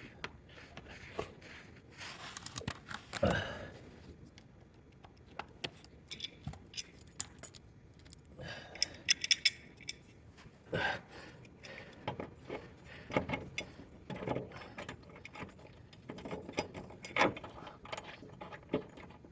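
Scattered metallic clinks and clicks of hand tools and blade hardware being handled under a mower deck while a cutting blade is changed.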